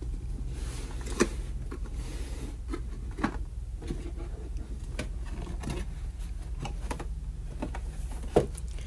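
Cardboard packaging being handled: a brown cardboard inner box sliding out of its printed paperboard outer box, rubbing and scraping with a few light knocks, the sharpest near the end.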